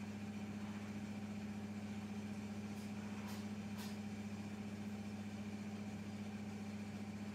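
A steady low hum that starts and stops abruptly, with a few faint clicks partway through.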